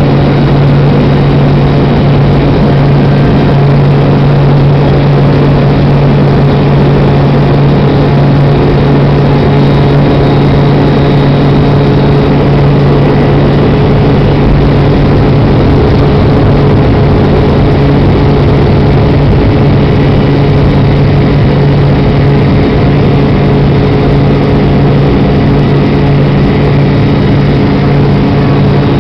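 Airliner turbofan jet engine at takeoff power, heard from inside the cabin: a loud, steady drone with a strong low hum and fainter higher tones throughout the takeoff roll and climb-out.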